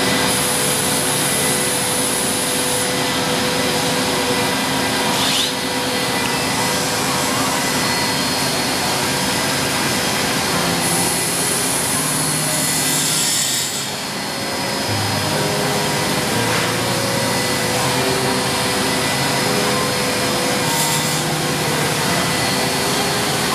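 Woodworking CNC machining center running, its spindles cutting and shaping a wooden workpiece: a loud, steady machine whine and rush, with a high hiss that comes and goes and a brief drop in loudness about halfway through.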